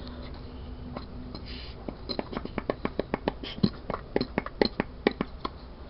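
Quick, irregular clicks and taps of small metal parts being handled: a homemade flashback check valve being closed back up by hand after a new diaphragm is fitted. The clicks come several a second from about two seconds in, after a faint steady hum at the start.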